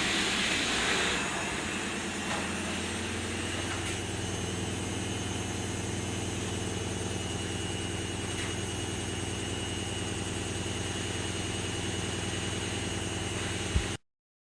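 Candy Activa washing machine spinning at high speed: a steady, loud motor-and-drum hum, with a brighter rush of water in the first second or so. It cuts off suddenly near the end.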